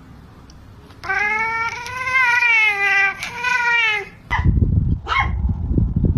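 A cat's long, wavering yowl lasting about three seconds, followed by two short, higher cries. Loud low rumbling noise comes in with the short cries.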